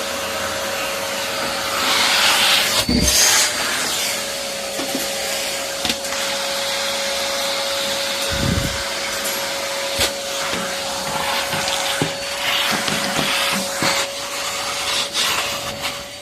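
Steady whir of an electric motor with a constant hum and a hiss, like a vacuum cleaner running, with scattered clicks and two low thumps.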